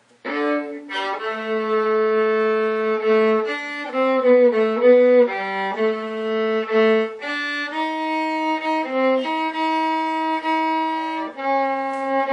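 Viola playing a melody line in bowed, sustained notes that change pitch every half second to a couple of seconds, starting just after a brief break at the very beginning.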